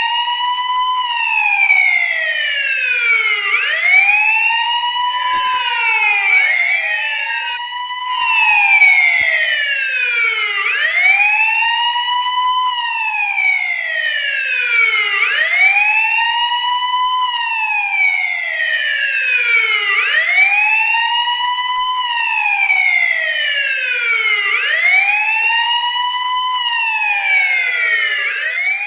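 Police siren in wail mode: the pitch climbs quickly, then slides slowly down, over and over every four to five seconds. At times a second wail overlaps out of step.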